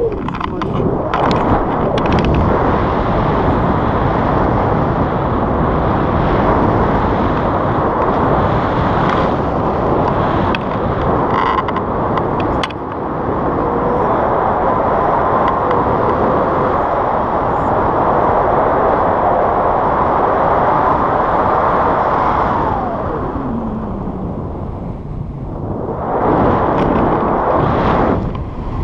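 Wind rushing over an action camera's microphone in paragliding flight, a steady dense rush with a faint gliding whistle in it. It eases for a few seconds near the end, then comes back strong.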